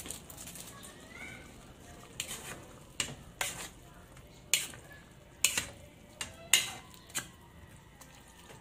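Metal turner scraping and clinking against the side of an aluminium pot while ground corned beef is stirred, with sharp clinks at irregular intervals of roughly a second.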